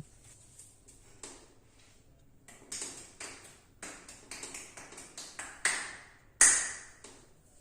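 A sharp crack at the start, then a run of quick hand taps and slaps on the body during a massage, about three or four a second, ending in two louder slaps.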